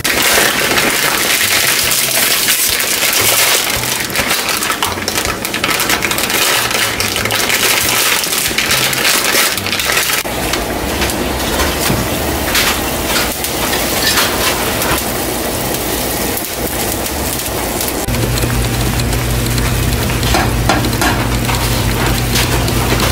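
Plastic wrapper of an instant ramen packet crinkling and tearing as it is opened and the noodle block handled, a dense crackling for the first half or so. Near the end, water boiling hard in a pot with noodles in it, over a low steady hum.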